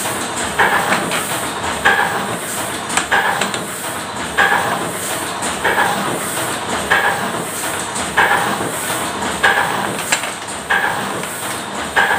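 Machinery running with a steady hiss and a clattering beat that repeats evenly about once a second.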